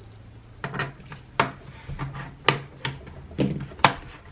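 Sharp plastic clicks and snaps, about seven of them over three seconds starting a second in, as a Dell laptop's keyboard is worked loose from the top case and its clips release.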